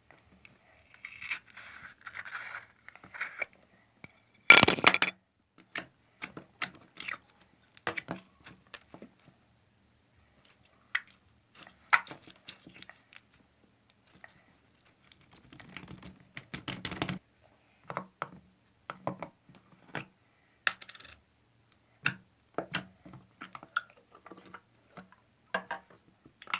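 Slime being handled: irregular short clicks, pops and crackles as it is pressed, poked and stretched, with a crinkly patch about a second in and the loudest crackle about four and a half seconds in.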